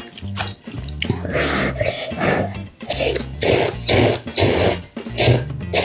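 Instant noodles slurped off chopsticks in a rapid run of loud, noisy sucks starting about a second in, over background music with a steady low bass line.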